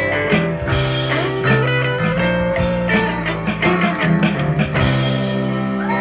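Rock band playing an instrumental passage in a blues-rock style: a guitar plays held notes with pitch bends over steady bass notes and drums.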